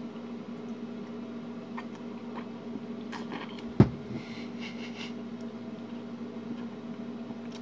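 Steady low hum with a few light clicks, and one dull thump about four seconds in.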